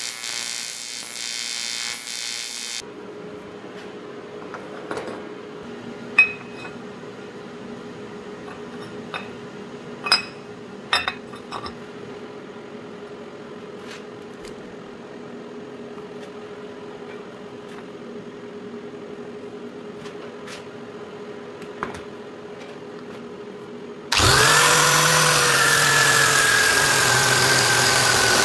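AC TIG welding arc on aluminium buzzing for the first few seconds, then a low steady hum with a few light clicks and knocks. About 24 seconds in, an angle grinder starts up, its pitch rising, and then runs steadily.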